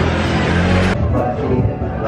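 Background music, with an abrupt change in the sound about a second in.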